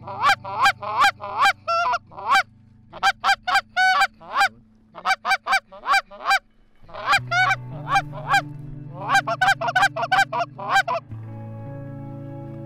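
Duck call blown in quick runs of loud, sharp hen-mallard quacks, several notes a second, with short pauses between runs. Soft background music with a low sustained chord underneath is left alone near the end.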